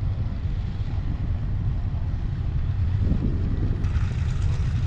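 Boeing B-29 Superfortress's four radial piston engines running at low taxi power, a steady low rumble.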